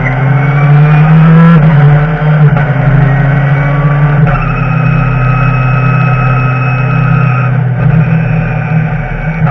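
BMW touring race car's engine heard from inside the cockpit, rising in pitch under acceleration with an upshift about one and a half seconds in. It climbs again, then holds a steady pitch from about four seconds in, with a brief dip near the end.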